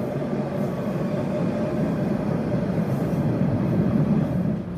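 MBTA Orange Line subway train pulling into the station platform: a steady rumble of the cars rolling by, with a faint steady hum, growing louder about four seconds in.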